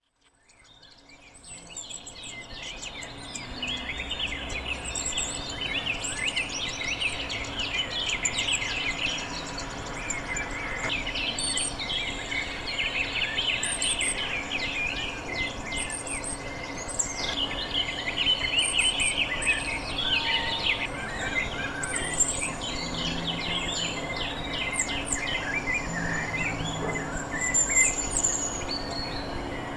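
A chorus of many birds chirping and calling over one another, a dense run of short high chirps and trills.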